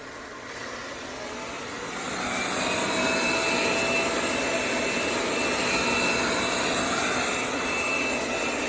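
Roborock Q8 Max robot vacuum's suction fan spinning up over the first few seconds, then running steadily with a thin high whine.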